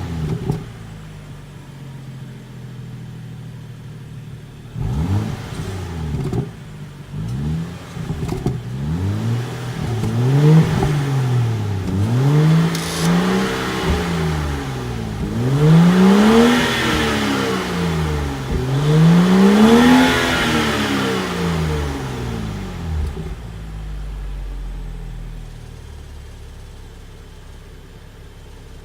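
2014 BMW 335i's turbocharged 3.0-litre inline-six, fitted with the M Performance Power Kit and the factory exhaust, idling and then revved. It gives a few quick blips, then a run of longer revs that rise and fall, the biggest two past the middle, before settling back to a steady idle near the end.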